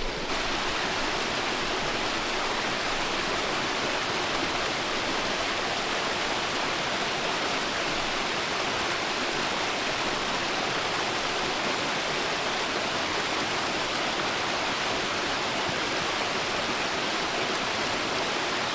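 Creek water rushing steadily, an even, unchanging rush of flowing water.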